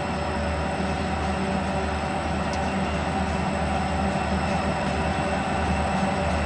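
A lashup of diesel freight locomotives running as the train approaches slowly, a steady low engine drone growing slightly louder.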